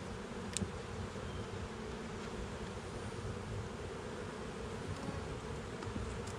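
Honeybees buzzing in a steady hum from an opened hive, with one sharp click about half a second in.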